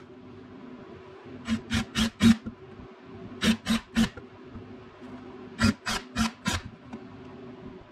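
Cordless drill run in short trigger blips while drilling into wood: three quick groups of three or four brief bursts, the first about one and a half seconds in, the last near six seconds.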